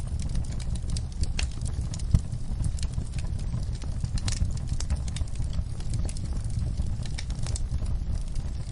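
Wood fire burning in a fireplace: a steady low rumble of flames with scattered crackles and pops, one louder pop about two seconds in.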